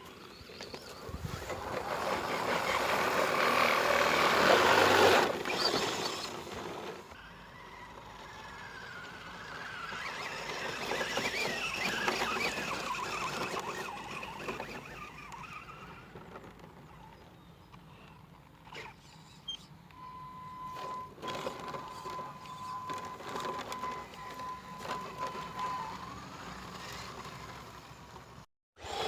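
Brushless motor and tyres of an ECX Torment short-course RC truck driving off-road. The sound swells to its loudest about five seconds in, then drops away sharply. It swells again more softly, and later a steady high tone holds for several seconds.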